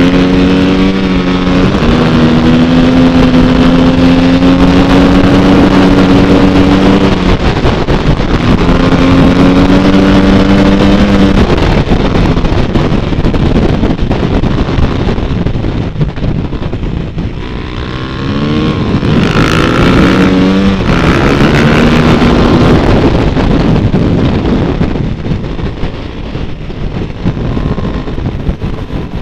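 Dirt bike engine running under load, its note holding steady for a few seconds at a time and breaking off and changing several times, with wind rushing over the microphone.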